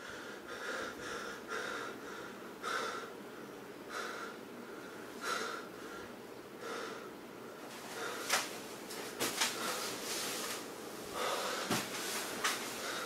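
A young man breathing heavily through his open mouth after a fright, the breaths spacing out as he calms. In the second half come a few short, sharp rustles of bedding as he moves to get out of bed.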